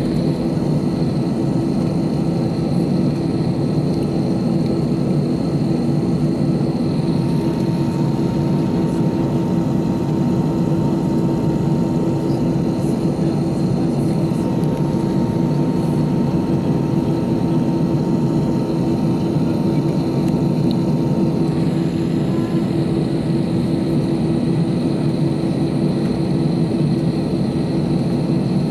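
Airbus A319 jet engines running steadily, heard inside the cabin as an even hum while the airliner taxis.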